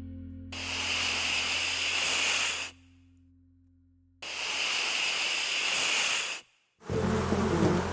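Two long hisses of about two seconds each, a second and a half apart, followed near the end by the start of a buzzing sound.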